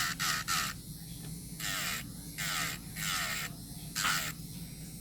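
ECBASKET electric nail drill running with a steady low motor hum while its bit files gel off a nail in about six short scraping strokes, each with a falling whine.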